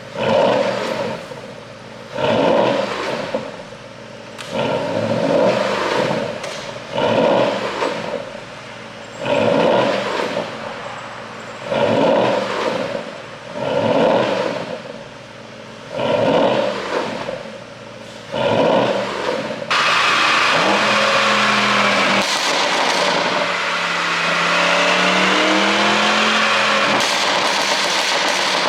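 Porsche Panamera Turbo S E-Hybrid's twin-turbo V8 through a tuned exhaust with the flaps fully open, blipped about nine times roughly every two seconds, each rev falling away with a crackling tail. Then it runs continuously under load, the pitch climbing slowly.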